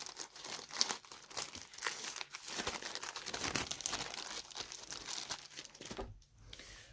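Plastic packaging crinkling and rustling in irregular bursts as a diamond painting kit's canvas and bags of drills are handled and put back into their plastic bag, going quieter near the end.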